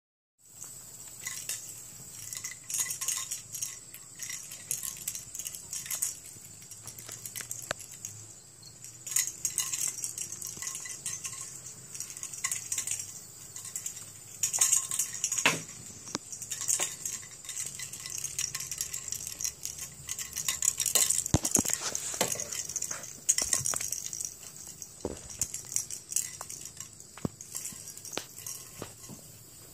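A kitten playing on carpet: scattered scuffles, rustles and light clicks and clinks at irregular moments as it scampers and bats at things, over a steady high-pitched whine.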